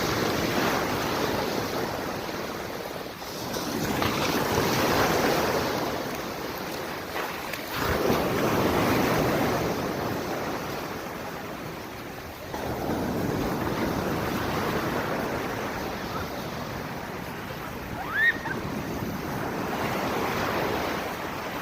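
Sea waves breaking and washing up a beach, the rush swelling and fading in surges every four to five seconds, with wind buffeting the microphone. A short high squeak rises briefly about eighteen seconds in.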